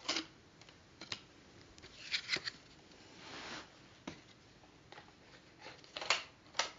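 Light clicks and short rustles of handling, with one longer soft rustle about halfway through, as a View-Master reel is taken out and the next one put in.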